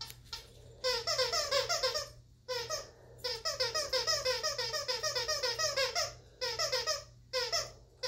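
Plush squeaky toy squeaking rapidly and over and over as a dog chews on it, several squeaks a second in runs broken by short pauses.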